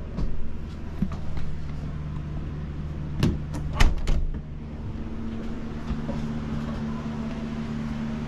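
A few sharp knocks and clacks, the loudest three coming close together about three to four seconds in, over a steady low hum.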